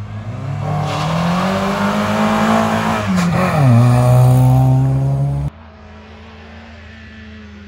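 Renault Mégane Coupé rally car launching hard from a stage start, its engine revving higher and higher, then its note dropping sharply just after three seconds in as it passes close by. The loud engine cuts off suddenly about five and a half seconds in, leaving a fainter steady engine sound.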